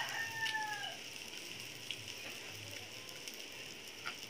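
Meat sizzling on a Korean BBQ hot pot grill: a steady hiss with a few small pops. In the first second, the tail of a rooster's crow falls slightly in pitch and fades out.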